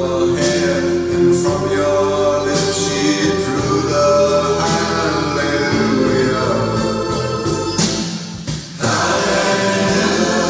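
Recorded choir music with accompaniment, played back through a hi-fi system of Shahinian Obelisk loudspeakers driven by Kora Cosmos tube amplifiers. The music dips briefly about eight seconds in, then carries on.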